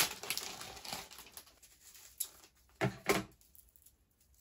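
Clear plastic packaging bag rustling and crinkling, dying away over the first second or so. Then a few sharp clicks and clacks, a close pair among them, as a clear bead strap is handled.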